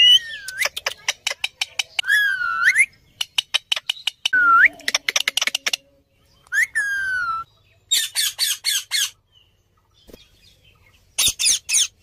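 Indian ringneck parakeets squawking and chattering: loud calls that slide up and down in pitch, mixed with quick runs of clicks and short, rapid pulsed calls, with a brief lull near the end.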